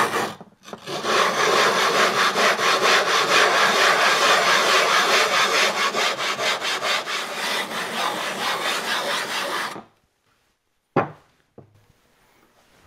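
A cast-iron hand plane's sole being lapped flat: rubbed back and forth in quick, even strokes over a flat plate spread with 90-grit silicon carbide powder and oil, a loud gritty grinding. The rubbing stops abruptly, followed by a single knock as the plane is lifted or set down.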